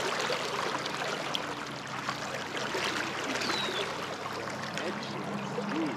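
Steady rushing and trickling of river current. A faint high, falling chirp sounds about three and a half seconds in.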